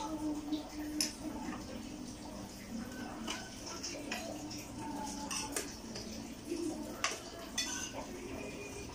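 Metal spoons and forks clinking and scraping against china plates and bowls during a meal, in scattered irregular taps, over a low steady hum.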